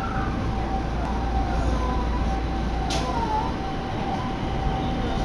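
Interior noise of a Nagoya Municipal Subway Higashiyama Line train: a steady low rumble with a constant high hum over it, and a single sharp click about three seconds in.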